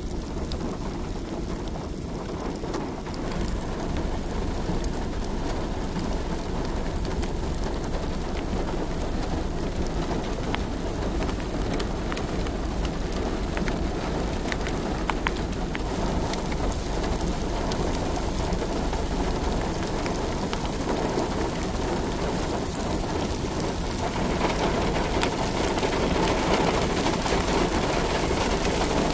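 Heavy rain falling: a dense, steady patter of drops over a low rumble, growing a little louder near the end.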